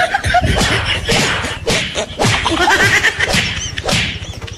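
A rapid series of slaps and smacks, hands striking a person again and again in a scuffle.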